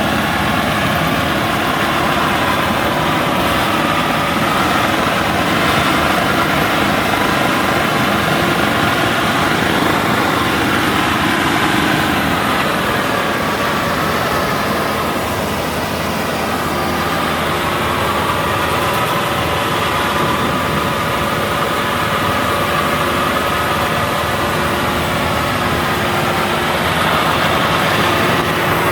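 WD102 PRO rice combine harvester's engine running steadily as the machine travels along the road.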